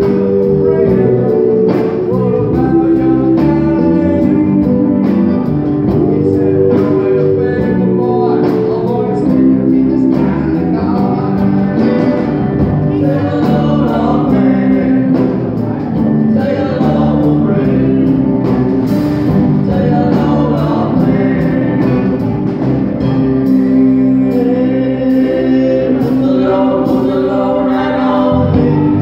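Live band playing amplified rock music with electric guitars, drum kit and a man singing lead into a microphone.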